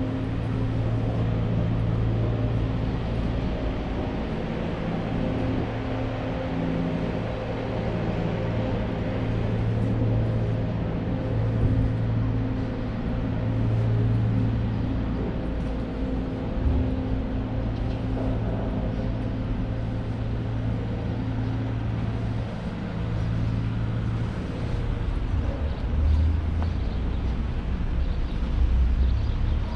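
A motor engine running steadily, a low hum that holds one pitch and shifts lower about three-quarters of the way through, with street background around it.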